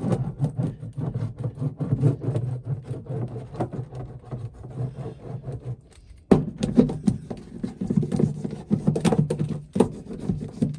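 Foil-backed sound-deadening mat being rubbed and pressed down onto a car's floor pan with quick, repeated strokes, pausing briefly about six seconds in before the rubbing starts again.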